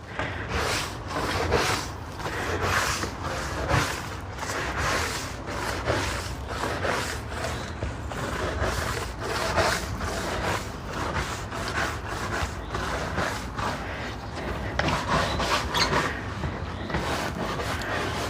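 Putty knife scraping packed debris out of the gaps between wooden deck boards, in quick repeated strokes about two a second.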